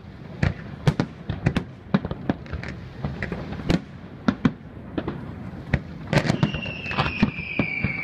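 Fireworks display: sharp, irregular bangs of bursting shells, several a second, getting denser in the last two seconds. Near the end a long whistle joins in, falling slowly in pitch.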